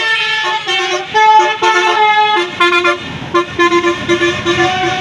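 Indonesian bus 'telolet basuri' multi-trumpet musical air horn playing a tune in held notes that step from pitch to pitch. About three seconds in it switches to a quick run of short repeated notes, about five a second, over the rumble of the bus.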